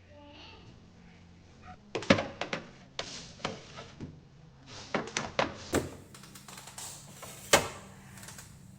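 Food containers and their lids being handled and set down: a run of irregular light knocks and clicks with some rustling. The sharpest knocks come about two seconds in and again near the end.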